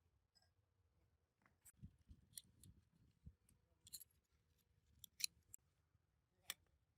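Irregular sharp clicks and a few dull knocks from small hand tools or parts being handled, about a dozen over several seconds, the loudest near the end.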